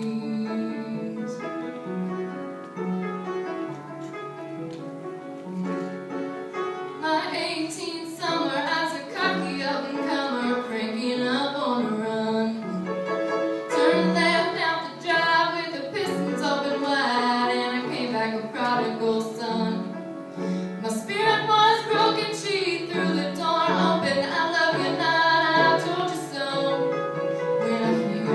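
A young woman singing a ballad live to instrumental accompaniment. Her voice grows fuller and louder about seven seconds in.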